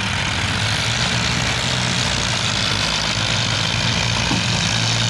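Tractor diesel engines running steadily: a low engine hum under a loud, even hiss.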